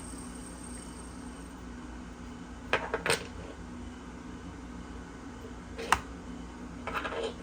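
Small metal fidget toys clicking and clacking as they are handled: a quick cluster of clicks about three seconds in, one sharp click at about six seconds and a short rattle near the end, over a steady low hum.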